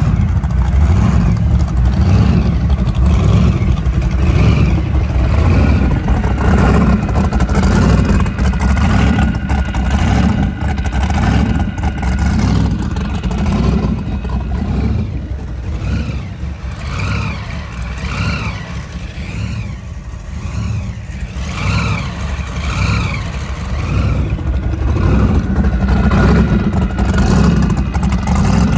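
The inboard engine of a 2001 HTM SR-24 performance powerboat idling on a flushing hose out of the water, running loud and low through its open through-transom exhausts with a steady rhythmic pulse. Water sprays out of the exhaust tips with the exhaust.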